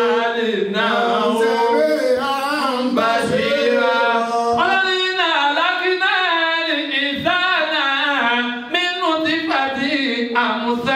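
A man's voice singing a melodic chant with no instruments, holding long notes that bend up and down in pitch.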